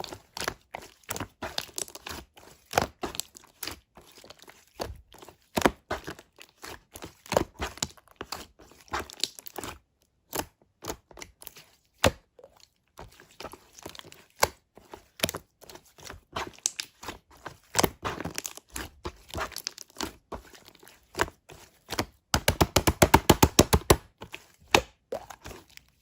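Slime being squished and pressed by hand, making irregular sticky clicks and pops, with a fast run of pops near the end.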